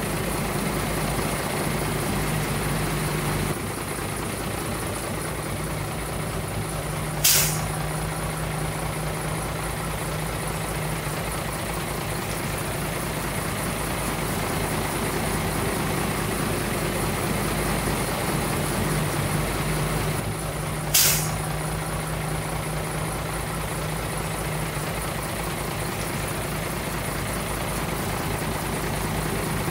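Heavy diesel dump truck engine running steadily at low revs, with two short, sharp hisses about 14 seconds apart.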